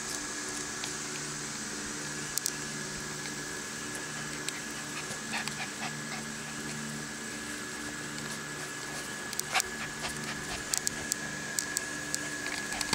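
English Cream Golden Retriever puppies playing and wrestling, with small dog sounds, over a steady droning hum. Sharp clicks come now and then, most of them in the last few seconds.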